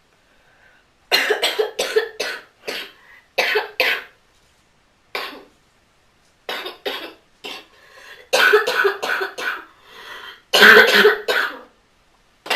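A person coughing in a long fit: short coughs in quick runs of several at a time, with brief pauses between runs, starting about a second in. The loudest run comes near the end.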